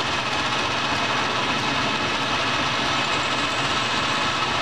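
Clausing metal lathe running steadily, its three-jaw chuck spinning a small turned part, a constant even machine whir.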